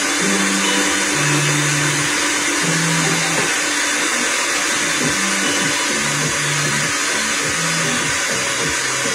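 Countertop blender running steadily, blending a thick milkshake of vanilla ice cream, brownie pieces and evaporated milk.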